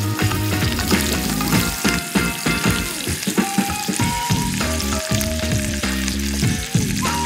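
Rolled, string-tied pork belly searing in hot lard in a pan: steady sizzling of the fat, with many small pops, as the skin crisps. Background music plays along with it.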